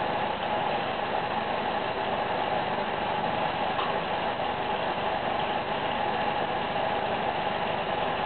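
Lampworking bench torch burning steadily while borosilicate glass tubing is heated in its flame: an even, unbroken rushing hiss.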